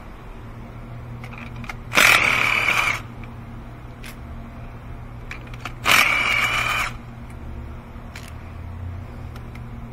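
Cordless power gun spinning spark plugs out through a long extension and spark plug socket, run in two sudden bursts of about a second each.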